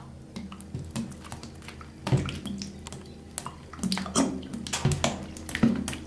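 Thick pizza sauce being slopped and smeared onto a pizza base with a spoon and a hand: irregular wet splats and squelches, with louder ones about two seconds in and several more in the second half.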